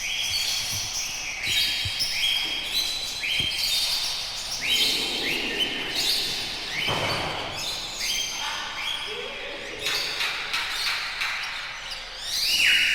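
Many birds calling at once: overlapping high chirps, each a short downward slide into a held note, repeating throughout. A louder noisy rush comes about seven seconds in.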